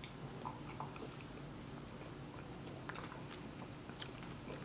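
Faint eating sounds of people tasting frozen custard off spoons, with a few soft clicks.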